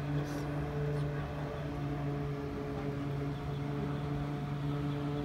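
Steady low machine hum holding one constant pitch with several overtones.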